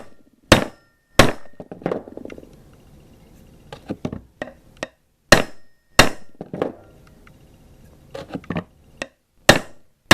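Hammer blows driving a steel cross pin home on an AR-15 upper: a dozen or so irregular strikes, several hard ones with a short ring after them and lighter taps between, until the pin is seated flush.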